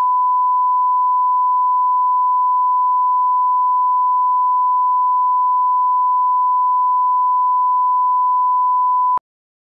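Broadcast line-up tone played with colour bars: one steady pure beep at a single pitch that cuts off sharply about nine seconds in.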